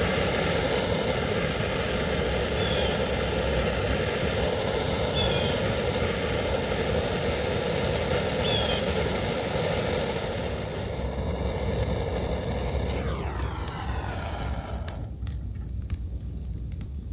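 Kubota BX23S compact tractor's three-cylinder diesel engine running steadily at high throttle, then the revs fall away about thirteen seconds in.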